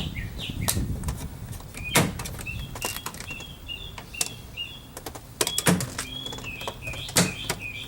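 Plastic interior door-handle bezel being pried loose with a flat-blade screwdriver: a handful of sharp clicks and snaps spaced a second or two apart. Birds chirp in the background.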